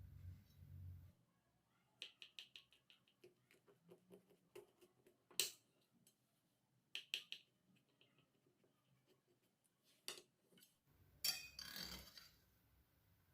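Light clinks and taps of cutlery or utensils against dishes, coming in short quick runs between quiet stretches, with a brief scraping rustle near the end. The tail of background music stops about a second in.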